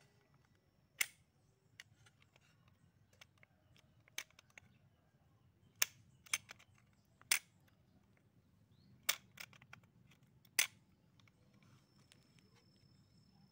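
Sharp metallic clicks and taps from a homemade crossbow's trigger mechanism (an aluminium channel latch pivoting on screws, with a steel-rod trigger) as it is handled and worked by hand, about nine of them at irregular intervals.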